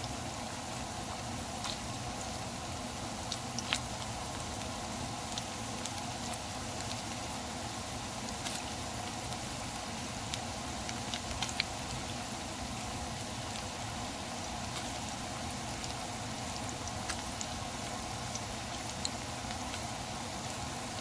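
Lentil fritters (dal bora) deep-frying in hot oil: a steady sizzle with scattered small pops and crackles.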